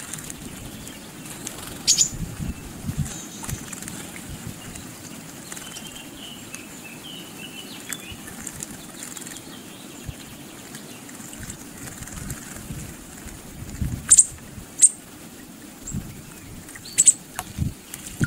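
Great tits bathing in a shallow pool: short bursts of wing-fluttering and splashing, one about two seconds in and a cluster of several near the end, with a few faint high chirps in between.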